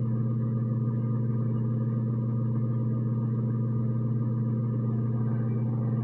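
A steady low mechanical hum that holds the same pitch and level throughout.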